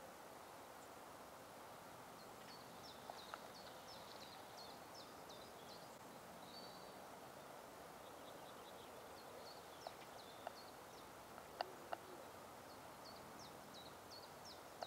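Faint outdoor ambience with small birds singing in runs of short, quick, high chirps, in two spells, and a few light clicks in between.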